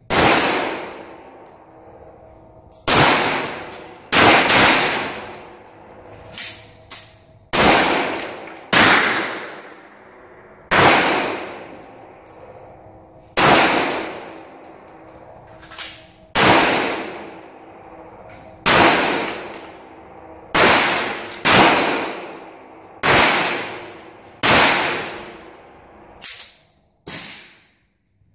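Handgun shots fired one at a time at uneven intervals, about twenty in all, some in quick pairs, each with a long echo of an enclosed shooting range.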